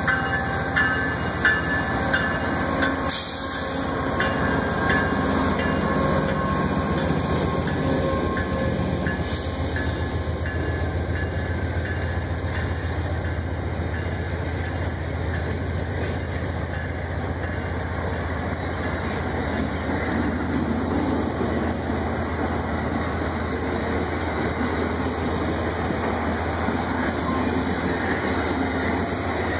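Amtrak passenger train pulling out past the platform: the GE Genesis diesel locomotive's engine drone for the first several seconds, with a run of wheel clicks over the rail joints near the start. Then the steady rumble and rattle of the stainless-steel passenger cars rolling by.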